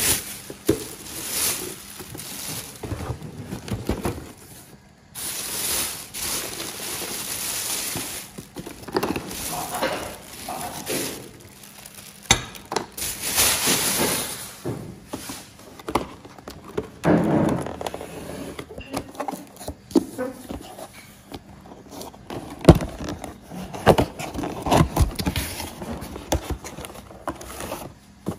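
A plastic carrier bag rustling and crinkling as boxed kitchenware is taken out and handled, with cardboard boxes scraping and knocking as they are set down.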